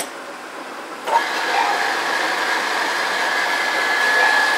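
Summit 24 x 80 lathe's cross slide moving under power rapid traverse: a click about a second in, then a steady whine with a single high tone that stops just before the end.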